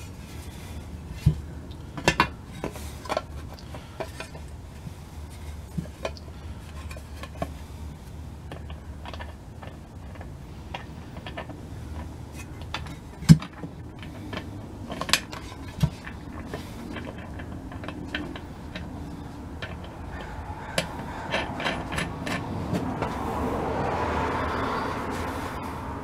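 Hands handling a painted metal switch panel and its switch parts: scattered small metal clicks and taps, one sharper knock about halfway through, and a longer rubbing, scraping noise near the end.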